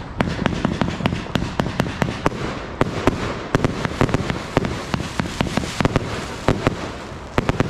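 Consumer fireworks going off in a rapid, irregular barrage: several sharp bangs a second over a continuous crackle.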